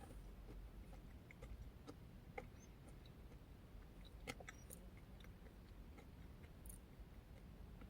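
Faint chewing of a yogurt, oatmeal and granola parfait: soft, scattered mouth clicks, the clearest about two and a half and four seconds in.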